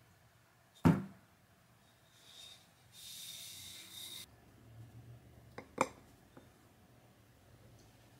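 A metal cake pan handled on a table: one sharp knock about a second in, a short hiss around three to four seconds in, then a couple of light clicks as the pan is set down upside down onto ceramic ramekins.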